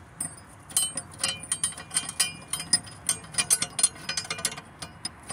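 Socket ratchet clicking in short runs of quick metallic clicks as it turns the blade bolt into the new motor shaft of a Cub Cadet CC30E electric mower deck.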